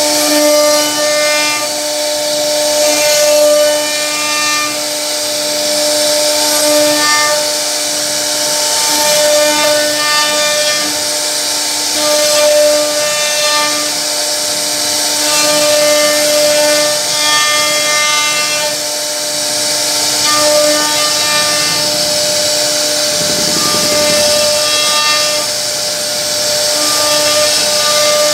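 CNC router spindle running at a steady whine while its bit carves a relief pattern into a wooden panel, with a high, hissy cutting noise over it.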